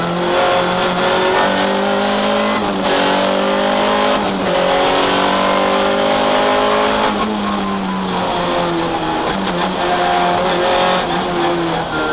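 Škoda Felicia Kit Car's 1.6-litre four-cylinder rally engine, heard from inside the cabin, running hard under acceleration. The pitch climbs through the gears with shifts about three and four and a half seconds in, drops around seven seconds in as the driver comes off the throttle, and climbs again near the end.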